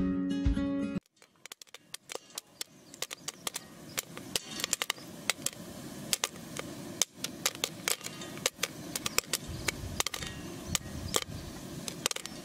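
Popcorn kernels popping in a metal pan: sharp pops that come quicker and quicker, over a steady hiss. Acoustic guitar music cuts off about a second in.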